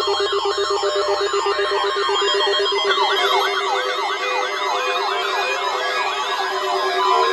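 Electronic siren-style alarm wailing up and down in quick sweeps, about three a second, over a steady lower tone. A second sweeping alarm joins out of step about three seconds in.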